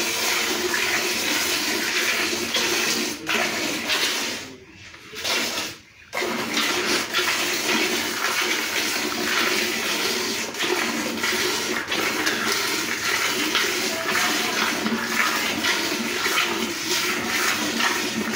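Hand milking of a cow: streams of milk squirting into a metal pail of frothy milk, a continuous hissing splash. There is a brief pause about five seconds in.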